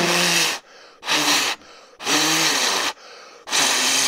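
A person blowing hard four times in close succession, each blow a loud rush of breath of about half a second to a second, with a faint hum of voice in it. The breath hits the microphone right at the power supply's fan grille.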